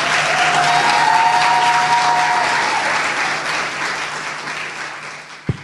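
Audience applauding, loudest in the first couple of seconds and dying away over the next few. A single low thump sounds near the end.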